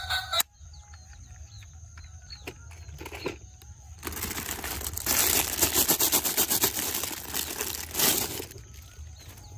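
A few faint clicks, then a dense crinkling, crackling noise for about four seconds in the middle, fading near the end; a snatch of music cuts off just after the start.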